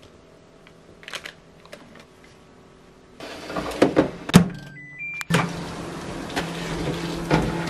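Metal baking tray slid into a Hitachi combination microwave oven, knocking against the oven cavity several times. A short run of electronic beeps from the control panel follows, rising in pitch, and then the oven runs with a steady hum.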